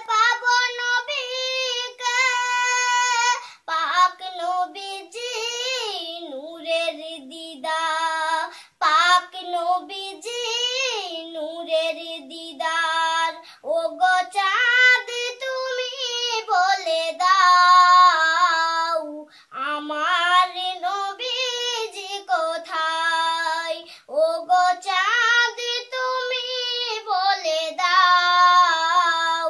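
A young girl singing a Bengali Islamic naat unaccompanied, her voice carrying long held, gliding phrases separated by short breaths.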